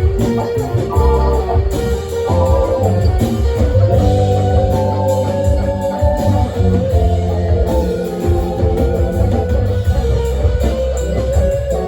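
Live band playing an instrumental rock jam: guitar lines over a steady, deep bass.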